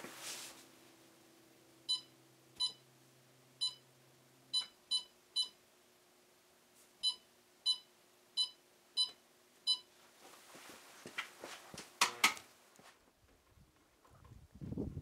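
Electric kiln's digital controller beeping as its keypad buttons are pressed to program a bisque firing: about eleven short, same-pitched beeps in uneven groups. Near the end a brief burst of noise is the loudest thing.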